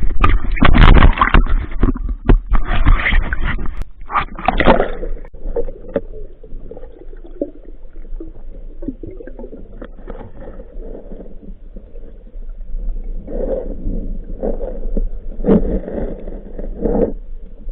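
Muffled water sounds picked up by an underwater camera while spearfishing: gurgling and sloshing that come in surges, loudest in the first few seconds and again near the end, with a low rumble between.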